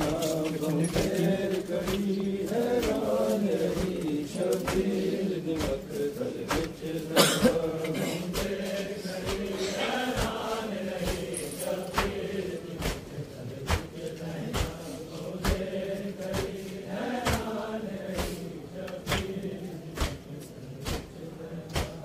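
Men's voices chanting a Muharram mourning lament (noha) together, with frequent sharp slaps of chest-beating (matam); one slap about seven seconds in is louder than the rest.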